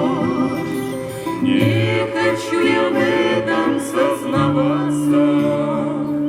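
Ensemble music with no sung words: held chords under a wavering melody line, the bass shifting to a new chord about two-thirds of the way through.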